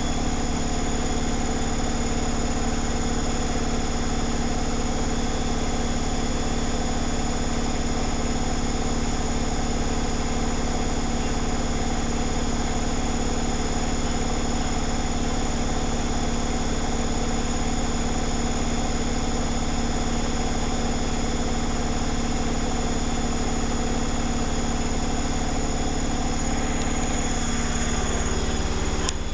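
Zanussi FlexiDose ZWG7160P washing machine spinning steadily at about 1000 rpm with an unbalanced load, its drum and motor giving a constant mechanical hum. The machine has held back from its full 1600 rpm spin because the load is unbalanced.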